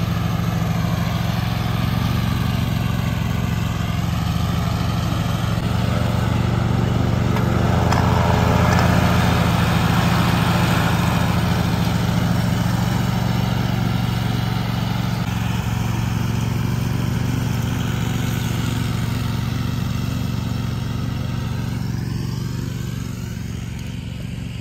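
Toro zero-turn riding mower's engine running steadily under cutting load as it mows grass. It grows louder a third of the way in and fades near the end.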